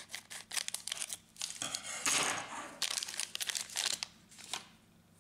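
Clear plastic bag around an ink cartridge being cut open with scissors and crinkled as the cartridge is pulled out: a run of crackling rustles that stops about four and a half seconds in.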